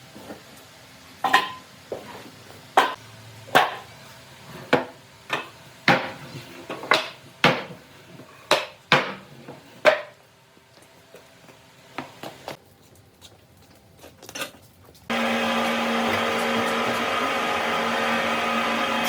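Hammer blows on wood, about one and a half a second for some ten seconds, then a few light knocks. About three-quarters of the way through, an electric power tool starts abruptly and runs steadily.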